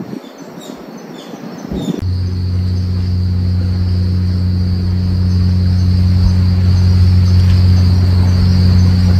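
Steady high-pitched insect buzzing over a loud, steady low hum, both starting suddenly about two seconds in. Before that, fainter outdoor sound with a few scattered high chirps.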